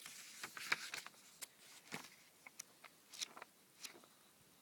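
Faint paper rustles and scattered light clicks from handling an old book and its pages.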